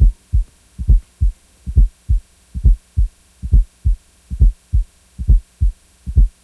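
Heart sounds with an added fourth heart sound (S4 atrial gallop). Each beat is three low thumps in a 'Ten-nes-see' rhythm, a soft S4 just before a loud S1 and then S2, repeating about 70 times a minute over a faint steady hum. An S4 is the sign of blood being forced into stiff, non-compliant ventricles (diastolic dysfunction).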